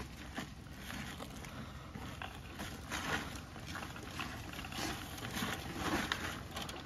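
Hands rubbing and pushing lumps of clay-and-sand soil through a 1/4-inch hardware-cloth sifting screen: irregular scraping and rustling of soil on the wire mesh, sifting out the larger pieces.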